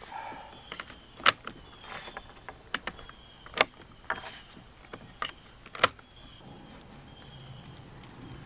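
5.56 cartridges being pressed one by one into an AR-15 magazine: sharp metallic clicks every second or two, with quieter rattling of rounds between.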